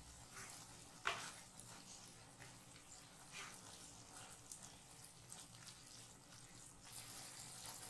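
Faint scraping and soft knocks of a spatula stirring wet noodles in a non-stick kadhai, with one sharper knock about a second in.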